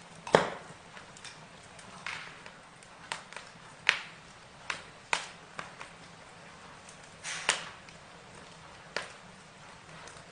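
Burning wood crackling: irregular sharp pops and snaps, about ten of them, the loudest about half a second in, over a faint steady hiss.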